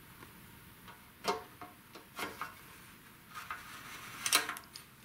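A few sharp clicks and knocks of fuel-system handling: the gas can is handled, then the fuel cap is fitted and turned onto the scooter's tank filler neck. The loudest clicks come about four seconds in.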